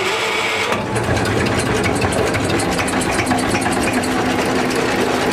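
Kromhout 3LSD three-cylinder diesel engine idling shortly after a cold start, a steady even clatter of regular ticks that takes over about a second in.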